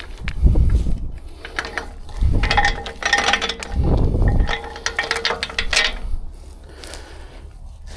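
Steel chain links clinking and rattling as a heavy rigging chain is handled by hand, with several dull thumps among the clatter.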